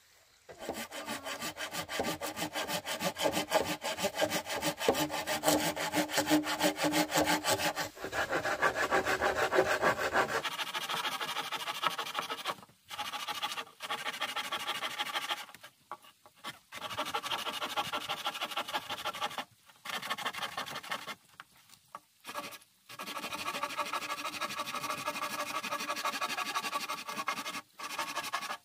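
Hand saw cutting through green bamboo poles in quick, steady back-and-forth strokes. It saws without a break for about ten seconds, then goes on in stretches with several short pauses.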